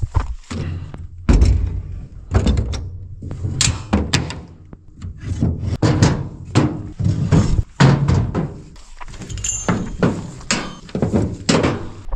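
An irregular run of knocks and heavy thuds, a dozen or more over several seconds.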